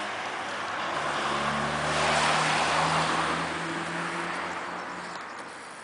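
A motor vehicle passing by, its noise swelling to a peak two to three seconds in and then fading away, with a steady low engine hum under it.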